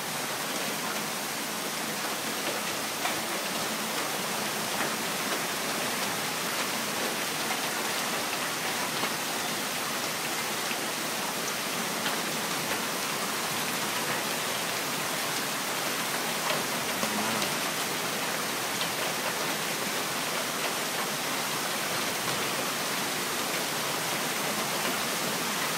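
Heavy rain pouring down steadily in an even, unbroken wash of noise.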